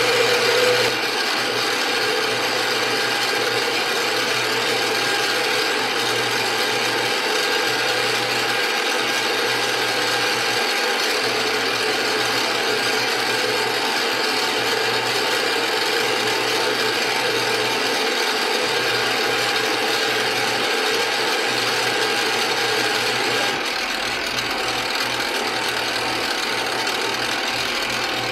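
Metal lathe running with its gear train whirring steadily, a cutting tool turning a metal blank held between the chuck and a live center down to the major diameter for a 5/8-18 thread. The noise is a little louder in the first second and drops slightly about 23 seconds in.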